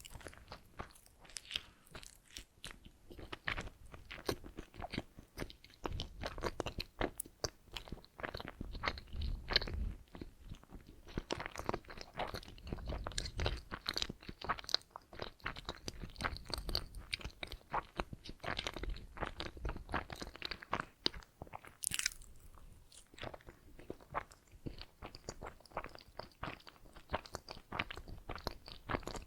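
Close-miked chewing of donuts: a dense, steady run of small wet mouth clicks and soft crunches, with stretches of deeper low thuds in the middle. The sound moves from ear to ear.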